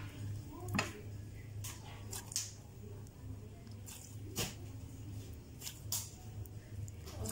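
Clear slime being squeezed and kneaded by hand, giving irregular sticky clicks and squelches, over a low steady hum.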